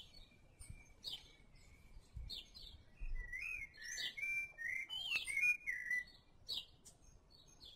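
Birds chirping: short high chirps repeating about once a second, with a louder warbling, whistled song from about three to six seconds in.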